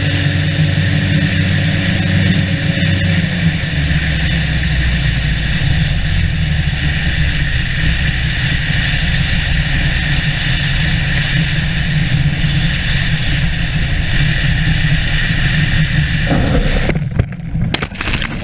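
Weight-shift microlight trike's engine and pusher propeller running steadily at flying power, with wind rushing over the microphone. About sixteen seconds in the engine sound stops and breaks up into knocks and a rustling scrape, with one sharp knock near the end.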